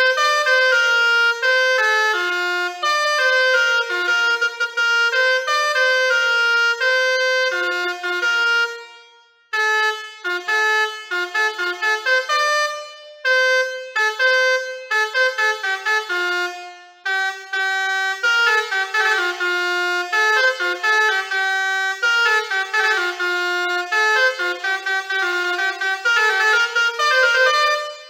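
Basuri 4.0 six-trumpet musical air horn playing a melody as a quick run of short, loud horn notes at changing pitches. It pauses briefly about nine seconds in, then another tune starts.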